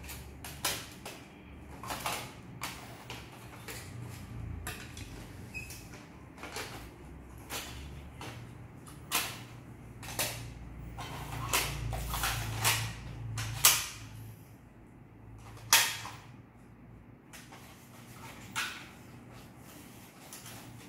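Plastic audio cassette cases clacking together as they are handled and stacked: irregular sharp clicks, a few a second at times, with a low rumble underneath.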